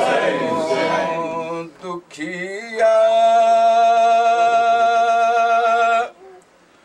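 Unaccompanied male chanting of a noha, a Muharram lament. It ends on one long held note of about three seconds that stops abruptly about six seconds in.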